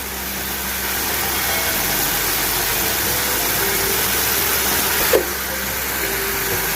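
Steady sizzling hiss of hilsa fish in mustard gravy cooking in a kadai after raw mustard oil has been poured over it, with one short knock about five seconds in.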